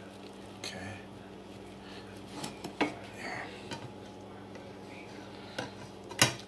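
Metal fork and slotted spatula clinking and scraping against a nonstick frying pan as an omelette is cut into quarters and lifted: a few separate clicks, the loudest just before the end.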